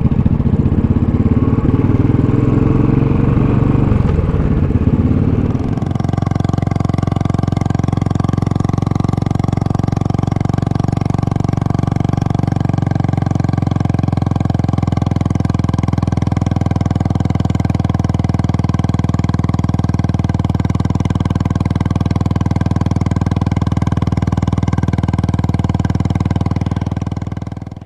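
Royal Enfield Classic single-cylinder motorcycle engine running on the move, mixed with wind noise. About six seconds in, the sound changes to a very steady, even engine note held at a constant speed.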